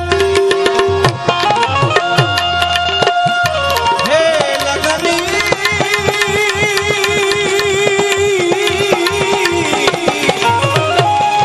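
Devotional folk song: a man singing over harmonium with steady hand-drum accompaniment, holding one long wavering note through the middle.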